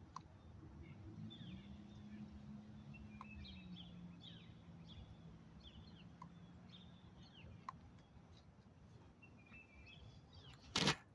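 Small birds chirping in short, quick calls, over a faint low steady hum that fades out past the middle. Near the end comes one brief, loud thump.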